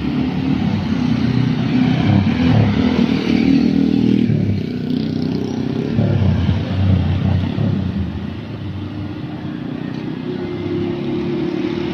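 Road traffic passing close by: a small box truck, cars and motor scooters driving past, their engines and tyres loud for the first seven or eight seconds. After that it eases to a quieter hum of more distant traffic.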